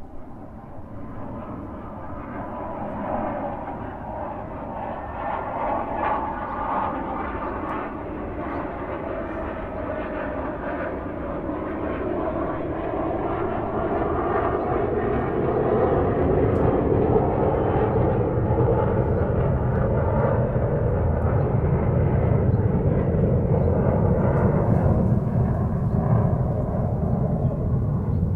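Airliner engine and airflow noise heard from inside the cabin: a steady, dense rush that grows louder through the first half and then holds, deeper and fuller in the second half.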